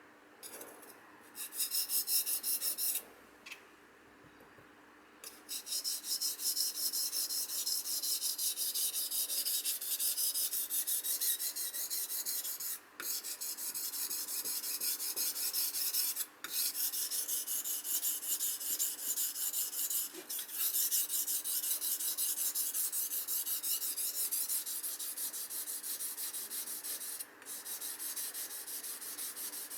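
Steel kitchen knife blade stroked back and forth on the fine side of a wet whetstone, a steady gritty scraping as the slurry takes fine metal off the edge. A short burst and a pause come in the first few seconds, then the strokes run on with a few brief stops.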